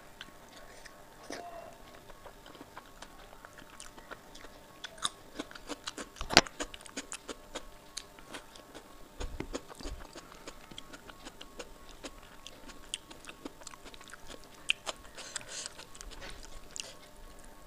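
Close-up eating sounds: fingers squishing rice into kadhi, wet lip smacks and chewing, with a bite into a fresh tomato slice. Many short clicks throughout, the loudest a sharp click about six seconds in.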